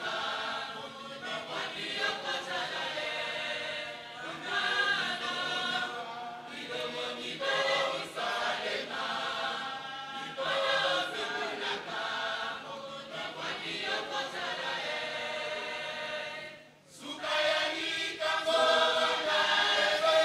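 Large church choir singing a hymn, breaking off for a moment a few seconds before the end and then resuming.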